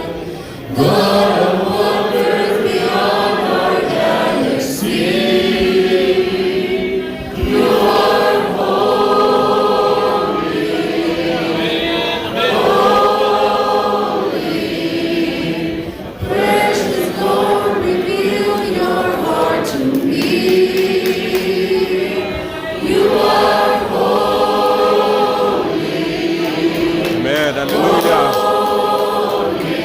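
Worship group and congregation singing a worship song together, with long held notes in phrases of a few seconds each.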